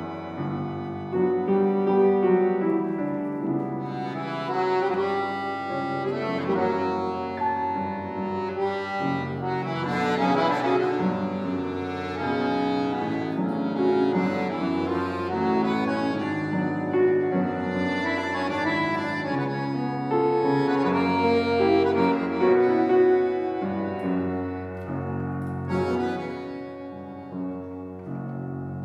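Chromatic button accordion playing a slow tango melody over held chords, accompanied by piano.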